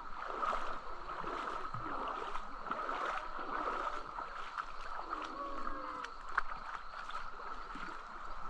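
River water flowing and rushing steadily, with faint, distant voices over it.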